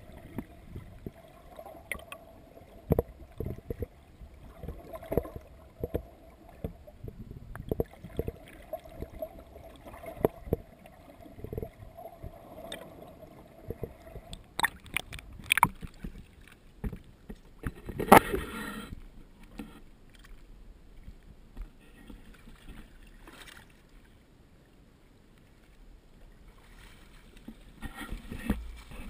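Muffled sound of a camera's waterproof housing under the sea beside a boat hull: irregular knocks and sloshing against the housing, over a steady hum that stops about halfway through. A louder knock and splash comes about 18 seconds in, and near the end the camera breaks the surface with a splash.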